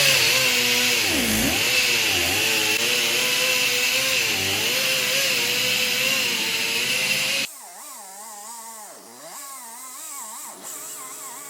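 Electric car buffer running against fresh paint, its motor whine dipping and wavering in pitch as the pad is pressed to the panel. About three quarters of the way through it drops abruptly to a much quieter level.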